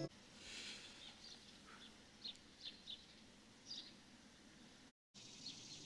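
Faint outdoor ambience with scattered, short bird chirps; the sound drops out completely for a moment about five seconds in.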